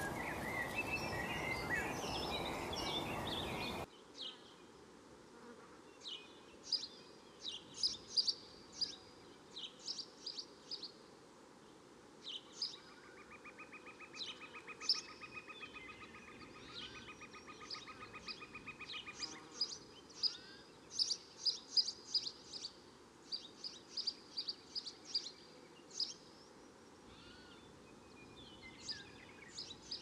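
Blue tits calling: quick high chirps and thin calls, with a buzzy, rapidly pulsed rattling trill lasting about seven seconds in the middle. For the first four seconds a loud, even rushing noise covers everything, then cuts off suddenly.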